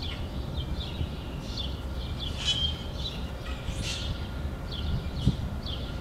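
Small songbirds chirping in quick short notes, several a second, over a low steady rumble.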